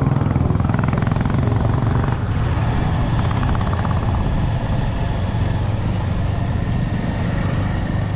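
Motorcycle engine running steadily while riding, with wind noise on the rider's camera microphone.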